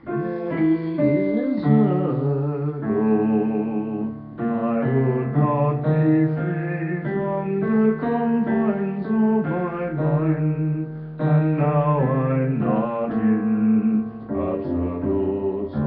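Digital keyboard played continuously: chords and melody notes come in suddenly at the start, some of them wavering in pitch, in a voice that is no longer a plain piano sound.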